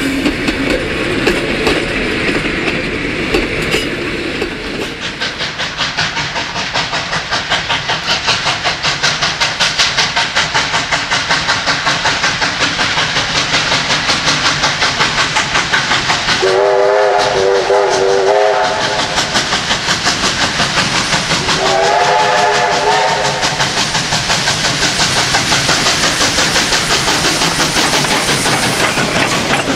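A steam train passing. First the carriage wheels clatter over the rail joints. Then the steam locomotive comes up working hard with rapid, even exhaust beats and sounds its steam whistle twice: a long warbling blast and a shorter one.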